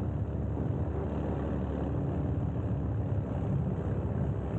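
Tracked over-snow vehicle running across the ice sheet: a steady low engine and track rumble with a faint constant hum.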